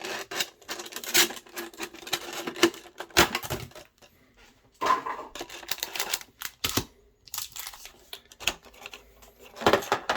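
Plastic insert of a Pokémon card tin and its foil booster packs clicking and crinkling as the packs and cards are popped out by hand, in a run of sharp clicks and rustles with a short pause about four seconds in.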